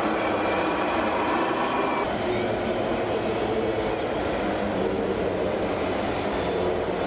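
Radio-controlled model truck running: a steady mechanical running noise, with a thin high whine coming in about two seconds in.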